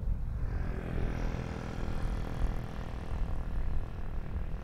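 Jet noise from a Boeing 747-400's four GE CF6-80C2 turbofans as the airliner climbs out after takeoff. The noise swells about a second in and holds, over an uneven low rumble.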